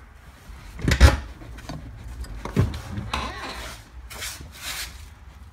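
A truck's stock cloth seat being handled out of the cab: a heavy knock about a second in, a second knock a moment later, then rubbing and scraping as the seat is shifted.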